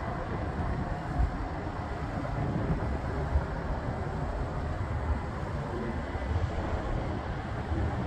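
Wind buffets the microphone in irregular gusts over a steady, distant rumble from a business jet rolling out along the runway just after touchdown.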